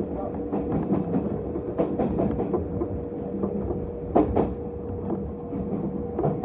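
Kintetsu electric commuter train's wheels knocking and clacking irregularly over points and rail joints as it runs through a junction, over a steady hum and rumble, heard from inside the driver's cab.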